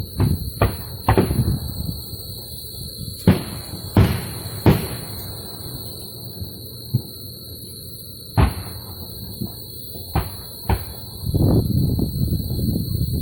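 Sharp outdoor bangs of fireworks or gunshots, going off singly at irregular intervals, each with a short echoing tail: a cluster in the first second, three more between about three and five seconds, one near eight and a half seconds and two around ten seconds. A steady high whine runs underneath, and a low rumbling noise builds near the end.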